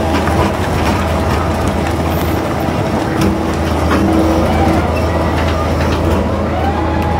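Fishing boat's engine and deck machinery running with a steady low drone, overlaid by irregular splashing and slapping from tuna thrashing in a hauled purse-seine net.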